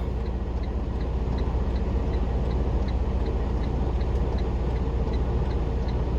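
Semi truck's diesel engine idling steadily, a low hum heard from inside the cab, with a faint regular ticking of about three ticks a second.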